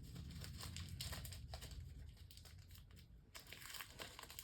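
Faint crinkling and tearing of a label tag being cut and pulled off a small fan heater, in irregular small crackles.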